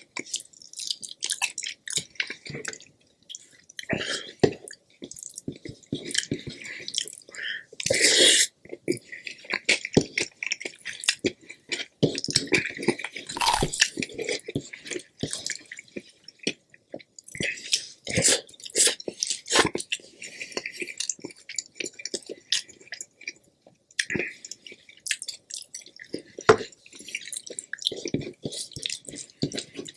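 Close-miked chewing of food: a constant, irregular run of small mouth clicks and crackles, with a few louder ones now and then.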